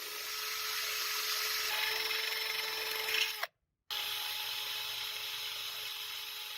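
A power tool running steadily with a high hissing whir and a faint constant hum. It breaks off abruptly a little past halfway and starts again almost at once.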